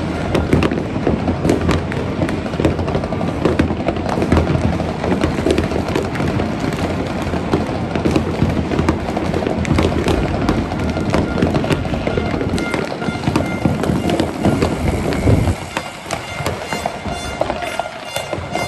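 Many fireworks going off at once: a dense, continuous barrage of bangs and crackling. It eases a little about three quarters of the way through, when some high pitched tones come in.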